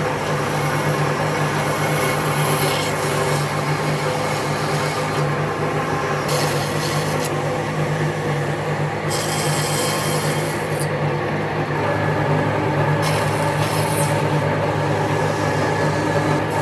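A power tool working wood: a steady motor hum under continuous abrasive rubbing noise, with the upper hiss changing abruptly several times.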